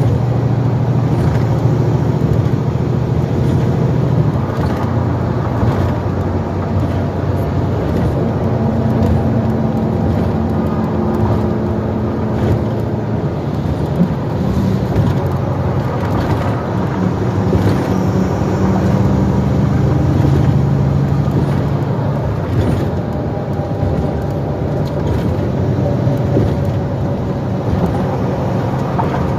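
2012 NABI 416.15 transit bus running under way: a steady diesel engine and drivetrain drone whose pitch holds for a few seconds at a time and then rises or falls as the bus changes speed, over constant road noise.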